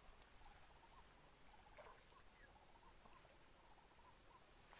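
Faint insects chirping at a high pitch in quick pulses, with scattered short, lower chirps from small animals, over otherwise near silence.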